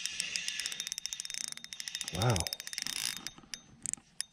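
Fishing reel clicking rapidly in a fast, even run while a hooked bass is played. The clicking fades near the end.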